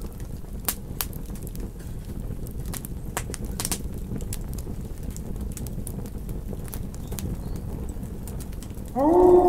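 Campfire crackling: sharp, irregular pops over a low, steady rumble. Near the end a wolf starts a howl that rises in pitch, then holds loud and steady.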